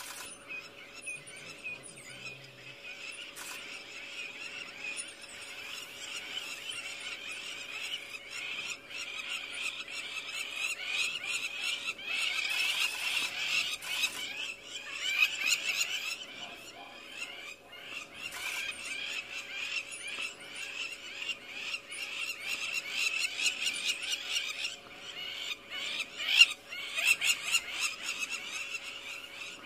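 A dense chorus of calling frogs, many fast trills overlapping into a steady high shimmer, over a constant single-note hum, with a couple of louder calls standing out partway through.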